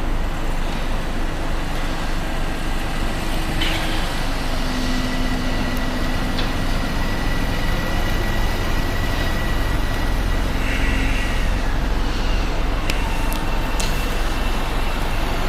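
A Bombardier M7A electric train moving along the platform track, a steady rumble with a faint whine held through the middle. A few sharp clicks come near the end.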